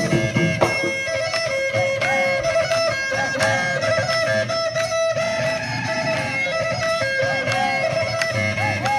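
Assamese Bihu folk music: a melody that slides up and down between notes over a held tone, with a drum beat.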